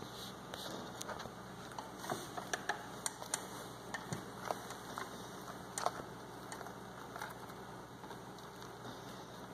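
Baby Hermann's tortoise scrabbling over bark-chip substrate: light, irregular clicks and rustles of chips shifting, thickest in the middle, over a steady hiss.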